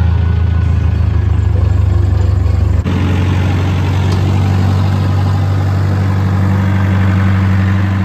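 Engine idling steadily. About three seconds in the sound shifts abruptly to the idle of a JCB rough-terrain forklift's diesel engine, which runs on evenly.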